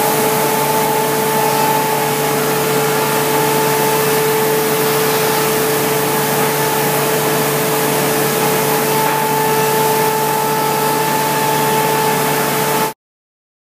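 KÜNDIG Botop top-and-bottom panel sanding machine running as glued wood panels pass through it: a loud, even hiss with a steady two-tone hum. The sound cuts off suddenly near the end.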